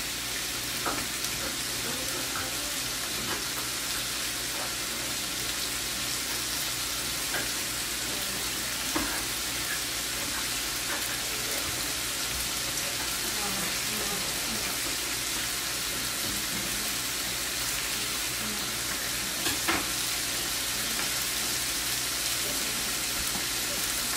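Bacon strips sizzling steadily in a frying pan, still pale and early in the frying, with a few sharp crackles of spitting fat.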